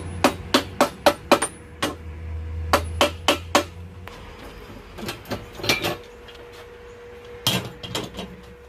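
Hand hammer striking steel: a quick run of about four blows a second, then scattered groups of sharper knocks with pauses between.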